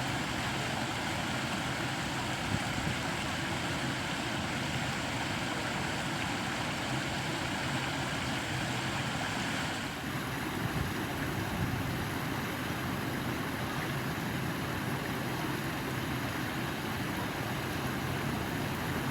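Steady rushing of flowing stream water, with no break. About halfway through its tone changes suddenly, the highest hiss dropping away.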